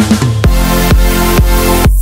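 Electronic dance music with a steady pounding kick drum, about two beats a second, and synth chords.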